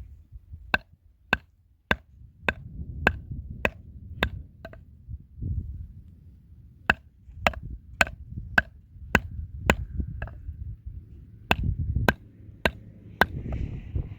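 Chopping with a knife on a board: sharp, evenly paced strikes with a slight ring, a little under two a second, in three runs with short pauses between them.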